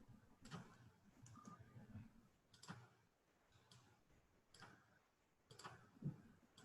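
Near silence with faint, scattered clicks about once a second: computer mouse clicks while working in Maya.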